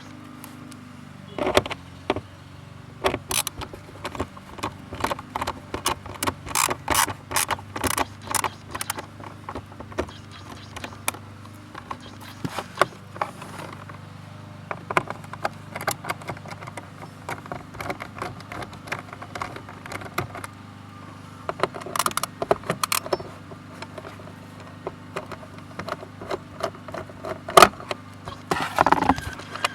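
Hand-work clicks, taps and knocks as plastic trim plugs, screws and a cover are worked loose with hand tools, including a quick run of clicks several seconds in and a sharper knock near the end. A faint steady low hum runs underneath.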